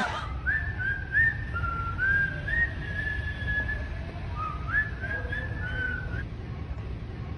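A person whistling a short tune, one line of notes stepping up and down, which stops about six seconds in, over a low steady rumble.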